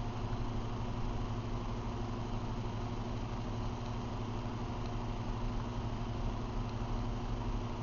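A steady low mechanical hum that keeps an even pitch and level throughout.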